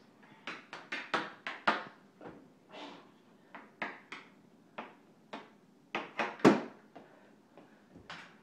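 Floor hockey on a tile floor: a mini hockey stick knocking a small puck and clacking on the tiles in a quick, irregular series of sharp knocks, the loudest about two-thirds of the way through.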